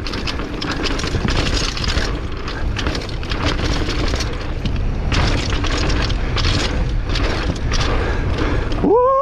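Downhill mountain bike descending a dirt trail at speed: steady wind rush on the microphone, with the tyres rumbling over the dirt and the bike rattling over bumps. A brief rising tone comes right at the end.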